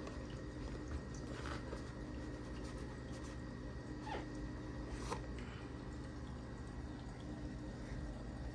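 Cardboard lid of a MacBook Air box slid up off its base, with faint rubbing and a short squeak about four seconds in and a soft click about a second later, over a steady electrical hum.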